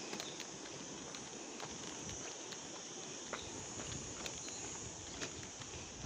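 Footsteps on a dry dirt path, irregular steps scattered throughout, over a steady high-pitched drone of insects.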